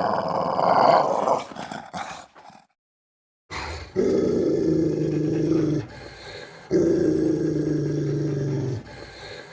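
Dog growling. A louder, rougher growl runs for about the first two and a half seconds, then after a short pause comes a low, steady, drawn-out growl in long stretches, broken twice by brief pauses.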